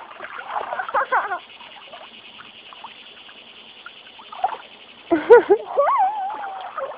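High, wavering cries in two bouts, briefly about a second in and louder from about five seconds in, over light splashing of water in a wading pool.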